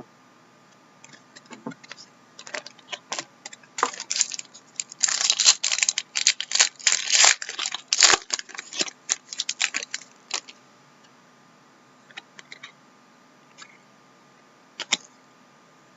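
Trading cards being handled and flipped, with scattered clicks and a dense stretch of crinkly rustling from about four to ten seconds in.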